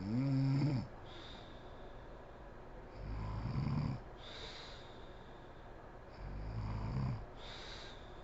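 A sleeping woman snoring: three snores about three seconds apart, each followed by a short breathy hiss.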